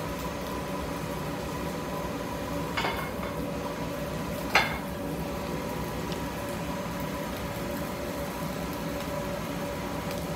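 Steady machine hum of a kitchen, broken by two short clatters of crockery on a hard surface, the second and louder about four and a half seconds in.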